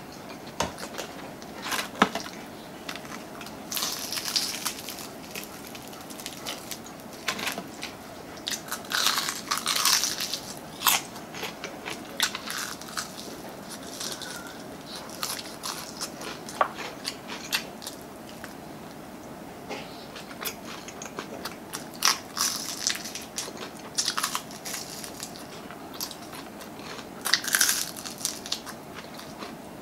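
Close-miked biting and chewing of crispy fried chicken: the coating cracks in loud, sharp crunches that come in irregular clusters, with quieter chewing in between.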